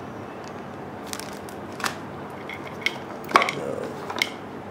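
Unboxing handling noise: a few short crinkles and taps from a plastic bag and items in a cardboard phone box, the sharpest about three and a half seconds in, over steady room hiss.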